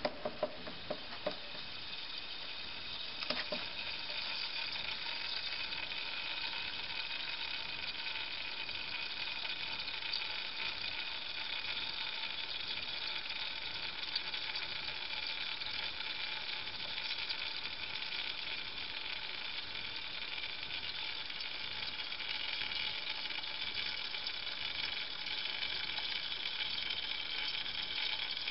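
Steady sizzling hiss of gas being fed under water into an inverted glass jar, filling it by displacing the water. A few sharp glass clicks in the first second or so, as the jar knocks against the glass dish.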